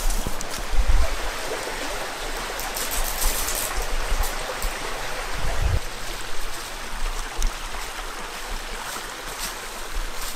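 Creek water rushing steadily over rocks, with a few low thumps about a second in and again past the middle.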